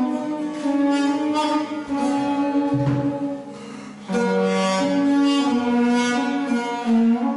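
Duduk playing a slow melody of long held notes joined by slides, dropping quieter about three seconds in and coming back strongly about a second later.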